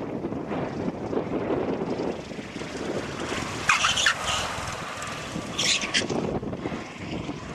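Wind buffeting the microphone over the steady noise of a vehicle on the road. There are two brief high-pitched sounds, about four and about six seconds in.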